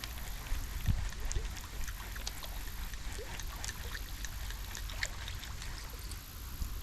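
Creek water trickling and splashing around the legs of someone wading in it, with many small scattered splashes and a steady low rumble underneath.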